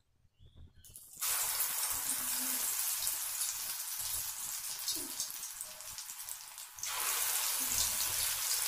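Pumpkin fritter batter dropped into hot mustard oil in a kadai, deep-frying with a dense crackling sizzle that starts suddenly about a second in, eases a little, and surges again about seven seconds in as more batter goes in.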